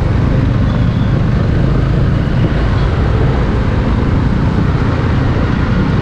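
Motorcycle running on the move, a steady low engine drone mixed with wind rumble on the microphone. The bike is a Hero XPulse with a modified exhaust.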